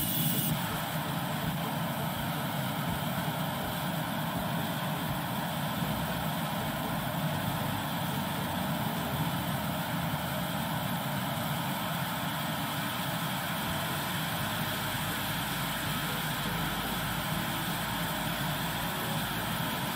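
Homemade turbojet engine (a DIY gas turbine) running steadily: an even rushing noise with a low hum beneath it.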